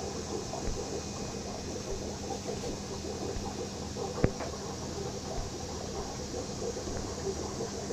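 Steady background noise with a faint hum, and one sharp click about four seconds in.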